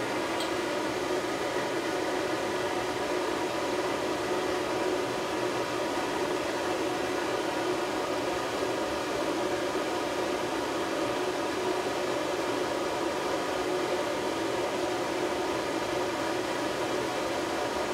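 Hair dryer blowing steadily while drying a dog's damp fur: a constant rush of air over an even motor hum.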